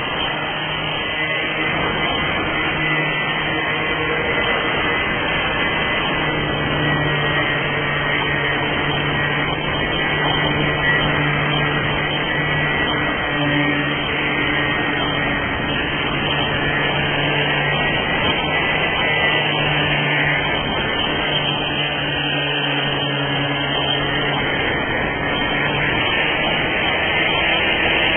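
Electric power sander running steadily with a constant motor hum, sanding the old flocking off a camper van's pop-top roof.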